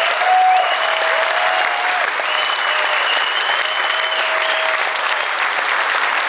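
Audience applauding steadily, with a few long held cheers over the clapping.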